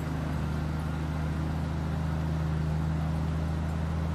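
Engine of an old six-wheel army-style truck loaded with logs, running steadily at an even pitch.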